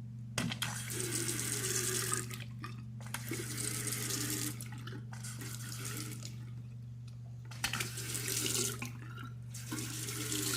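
Faucet running into a sink, turned on and off several times in short spells, just after its stiff handle was cleaned and greased with plumber's silicone.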